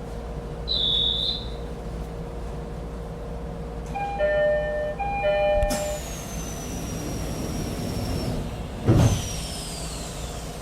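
Inside a passenger train car: a steady low hum. A two-note electronic chime sounds twice, then a sudden knock, a falling whine and a loud burst of air, typical of the doors closing and the brakes releasing.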